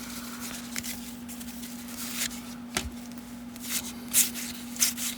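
Cardboard baseball cards being flipped through by hand: a short papery flick or slide every half second to a second, irregularly, over a steady low hum.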